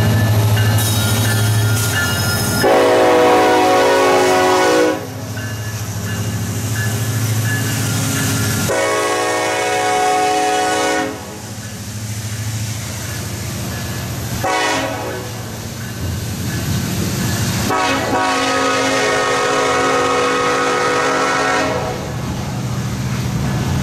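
Norfolk Southern double-stack intermodal freight train rolling past close by: a steady low rumble of diesel locomotive and wheels on rail. A locomotive air horn sounds three long blasts over it, the last the longest.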